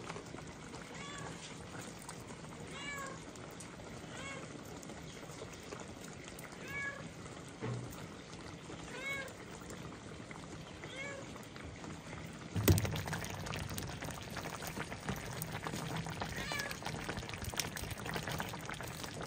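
Short animal calls, each a cry that rises and falls, about six of them at roughly two-second intervals. Then a sharp knock about two-thirds of the way through, followed by a steady hiss.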